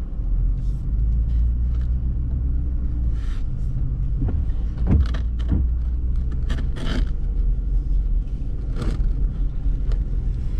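Low, steady engine and road rumble of a vehicle driving slowly, heard from inside its cab, with a few short scrapes and squeaks in the middle of the stretch and near the end.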